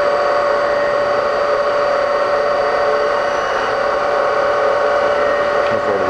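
Brown & Sharpe 618 Micromaster surface grinder running, with a steady whine from the wheel head over a grinding hiss as the wheel passes over a workpiece.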